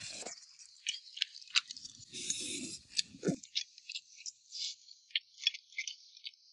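Eating at a table: irregular light clicks of tableware against bowls, along with chewing. A short muffled sound comes about two seconds in.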